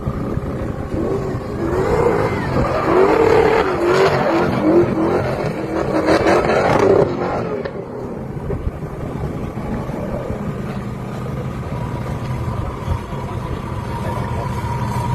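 Drift car engine revving hard, its pitch swinging up and down over and over for about six seconds. Then it drops back to a lower, steadier running sound.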